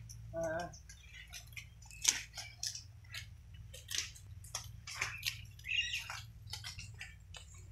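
Goats browsing on leafy branches hung from trees: irregular rustling, snapping and crackling of leaves and twigs throughout, with a brief goat bleat about half a second in, over a steady low hum.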